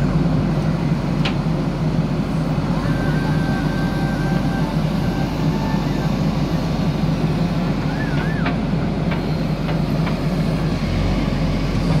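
JCB 3DX backhoe loader's diesel engine running steadily as the machine drives with logs in its front loader bucket.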